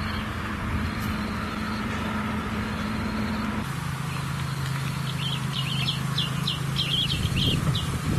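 A steady low motor hum that drops to a lower pitch about three and a half seconds in, over outdoor background noise. A bird sings a quick run of short chirps in the second half.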